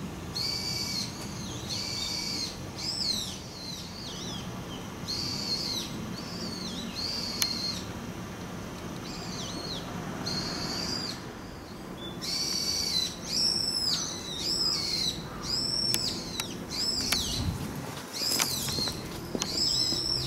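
A bird calling: short, high, arched notes repeated in bunches, coming quicker and louder in the second half, over a steady low background rumble.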